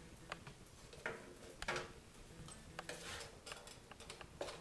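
Wooden spatula stirring and tossing fried rice in a wok, with irregular light knocks and scrapes against the pan, roughly one every second.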